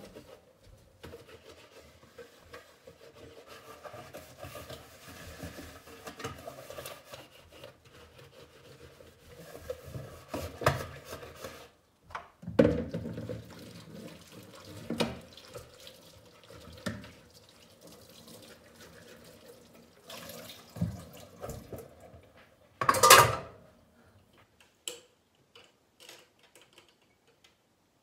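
Water running from a kitchen tap into a sink, with dishes knocking now and then. Near the end, after a louder clatter, the water stops.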